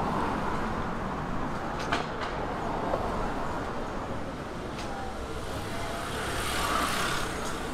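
City street traffic: a steady low rumble with a few faint clicks, and a hiss that swells and fades near the end as a vehicle passes.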